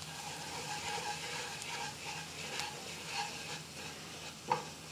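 Wooden spoon stirring and scraping minced shallots, garlic and flour through melted butter in a stainless steel frying pan, over a soft low-heat sizzle, the flour being cooked into a roux. A single short knock near the end.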